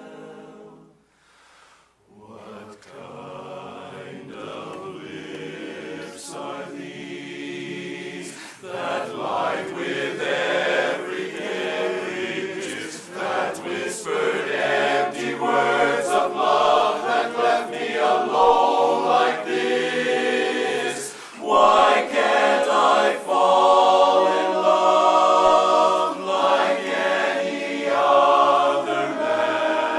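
A men's barbershop chorus singing a cappella in close harmony. After a brief pause about a second in, the singing builds from soft to full, and it is loudest in the second half.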